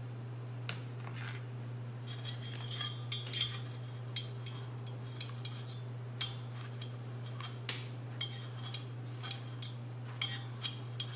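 A spatula scraping and working egg yolks through a metal mesh strainer set over a steel pot, with irregular clinks and scrapes of metal against metal. A steady low hum sits underneath.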